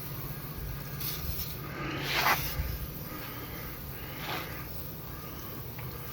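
Aerosol can of WD-40 sprayed in short hissing bursts: a faint one about a second in, a louder one around two seconds and another around four seconds, over a steady low hum.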